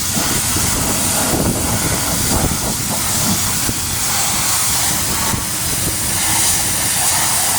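International Harvester 3588 tractor's diesel engine running, loud and steady.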